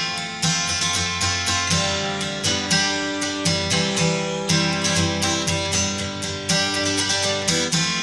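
Background music: an acoustic guitar strummed in a steady rhythm.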